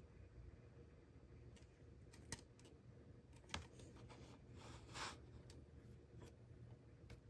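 Faint handling noise of a hard plastic (acrylic) table lamp being turned in the hands and set down on a tabletop: two light clicks, the second the louder, then a brief rub. Otherwise near silence with low room tone.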